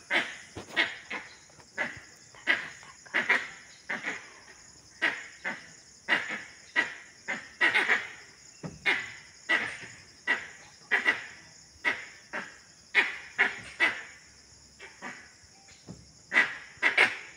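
A steady high insect drone with short, sharp animal calls repeated irregularly, about once or twice a second.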